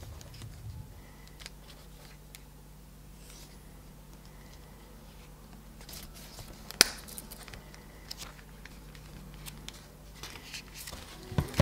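Leather wallet handled close to the microphone: leather rubbing and creaking with small scattered clicks, and one sharp click about seven seconds in as the strap's snap fastener is pulled open. The wallet is then opened, with leather and paper banknotes rustling.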